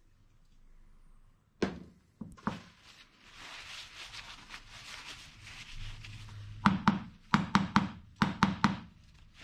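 A paper towel rubbing along a steel shock absorber piston rod as it is wiped down, with sharp knocks and clicks of the metal rod on the workbench. A few knocks come about two seconds in, and quick clusters of clicks and knocks near the end are the loudest sounds.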